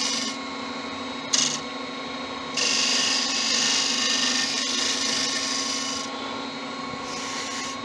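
Laguna 1836 wood lathe running with a steady hum while a hand-held turning chisel cuts the spinning spalted beech vase. The shaving hiss comes and goes: a short burst a little over a second in, then a longer cut through the middle that fades near the end.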